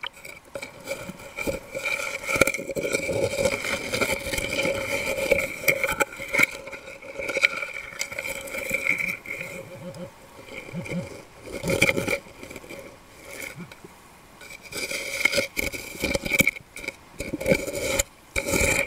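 Muffled underwater scraping and rustling of hands digging into seabed sand, in irregular bursts over a steady hum.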